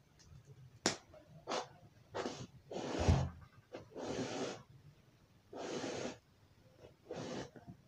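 A sharp click about a second in, then a string of short, soft swishes: rustling of a woven plastic sack and yarn as strands of yarn are pulled through the sack edge with a large eye needle, binding the mat's edge.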